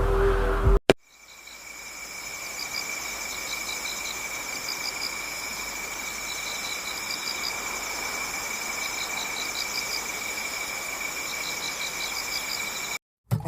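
Chorus of chirping insects: one steady high-pitched trill under repeated short pulsed chirps, swelling in just after a click about a second in. The first second is the end of a louder stretch of music with high calls.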